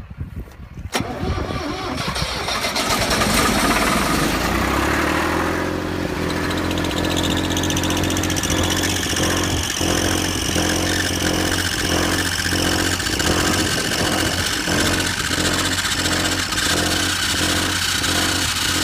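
Air-cooled Deutz diesel engine of a Miller 400D welder cranking and starting for the first time: a click about a second in, the engine catching and picking up speed, then running steadily. From about halfway on, the running takes on a regular pulsing about one and a half times a second. The engine's cooling blower is seized, so its belt is not turning.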